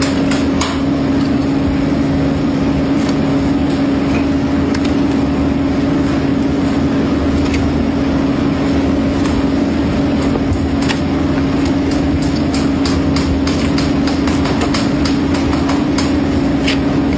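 A steady machine hum holding one constant pitch, with scattered sharp clicks and ticks over it.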